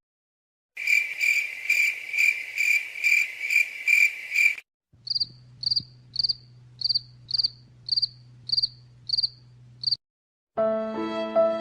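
Cricket chirping sound effect. First comes a run of regular chirps, about two a second. After a brief gap, a second recording has higher single chirps, about two a second, over a low steady hum. Music with held string tones begins near the end.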